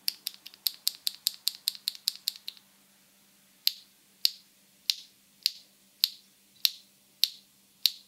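A single BSUN Taro N Sweet Potato linear mechanical keyboard switch pressed and released by hand, clicking in a quick run of about seven presses a second for two and a half seconds. After a short pause come slower single presses about every half second.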